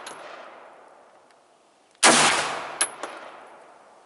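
A single gunshot at an outdoor range about two seconds in, ringing out and fading slowly, with a short sharp knock under a second after it. The tail of an earlier shot is still dying away at the start.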